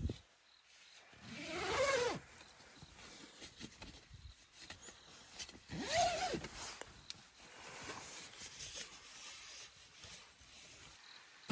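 Two drawn-out animal calls, each rising and then falling in pitch, about four seconds apart.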